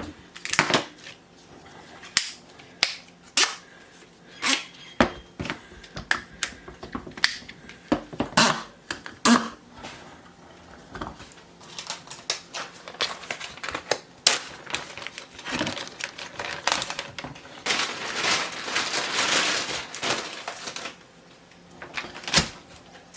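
Kitchen handling noises: a long run of sharp clicks and knocks, irregularly spaced, with a few seconds of steady hiss near the end.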